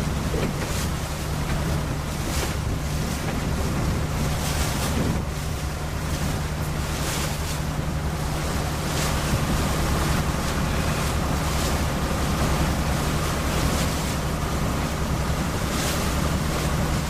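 Boat engine running steadily with a low hum, under wind buffeting the microphone and water rushing past, the wind and water swelling every second or two.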